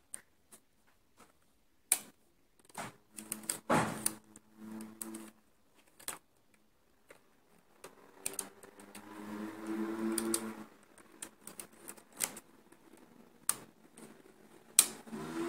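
Irregular sharp clicks of the metal needles on a Passap knitting machine's needle bed, as stitches are transferred by hand with a plastic tool.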